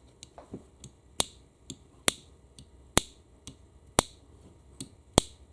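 Metal tool clicking against a retaining clip in an automatic transmission case as the clip is pried at and won't come out: sharp ringing ticks about once a second, with fainter ticks between.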